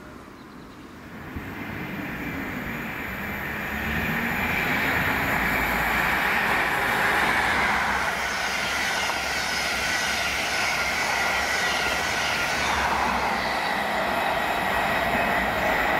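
An LNER High Speed Train led by a Class 43 diesel power car passes at speed. Its engine and the wheels on the rails swell about two to four seconds in, then hold a loud, steady rush as the train runs by.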